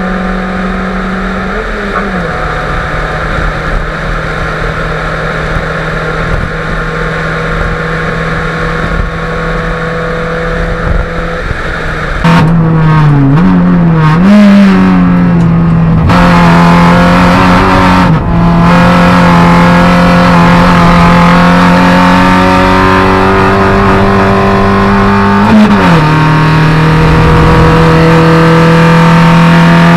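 Racing Fiat Grande Punto's engine running hard on track, its note mostly held steady at high revs with brief dips and recoveries in pitch a few times. From about twelve seconds in it is louder and heard from inside the stripped cabin.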